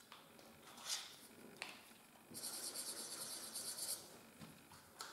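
Felt-tip marker scratching on paper as a flower is coloured in: a couple of short strokes, then about a second and a half of rapid back-and-forth scribbling.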